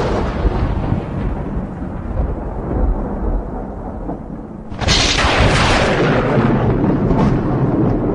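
Thunder: a rumble dying away, then a sudden sharp crack about five seconds in that rolls on into a long, low rumble.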